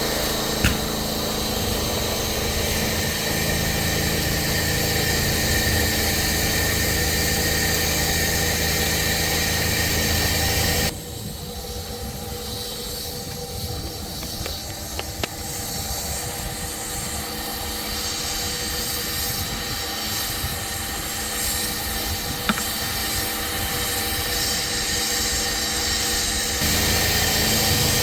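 A pressure-washing rig's engine running steadily. About eleven seconds in it drops suddenly to a quieter, hissier stretch, and the louder drone comes back near the end.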